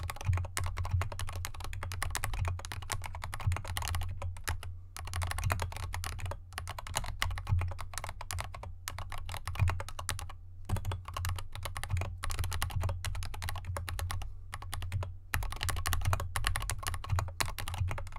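Continuous fast typing on a GK64X mechanical keyboard with lubed Gateron Yellow linear switches and SA-profile keycaps, in a foam-damped aluminium case resting on a desk mat. Keystrokes come in a dense stream of clacks, broken by a few short pauses.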